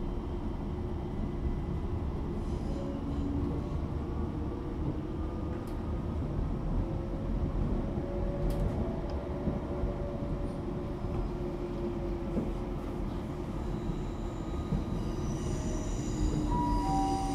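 Bombardier Class 378 electric multiple unit running, heard from inside: a steady rumble of wheels on track with a faint whine from the traction motors that shifts slowly in pitch. High thin squealing tones come in near the end.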